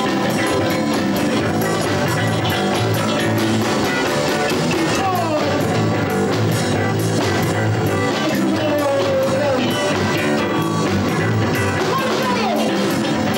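Live rock band playing, with electric guitars, drums and a singer's voice over a steady beat.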